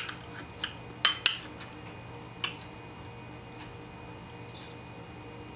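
Stainless spoon and fork clinking and scraping against a ceramic bowl as the fork pushes food onto the spoon: about five sharp clinks in the first two and a half seconds, then a brief softer scrape about four and a half seconds in.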